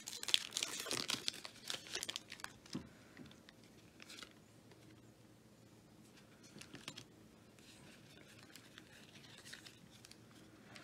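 Foil Pokémon booster pack wrappers crinkling and tearing open, dense for the first two or three seconds, then softer handling with a few short crinkles.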